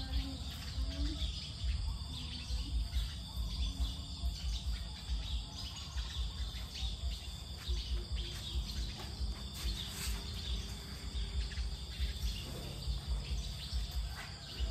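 Outdoor rural ambience: insects trilling steadily, with scattered bird chirps and an uneven low rumble of wind on the microphone.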